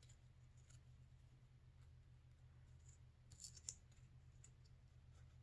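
Near silence with a low steady hum and faint crinkles of a paper bow's loops being pushed into shape by fingers, the clearest two about three and a half seconds in.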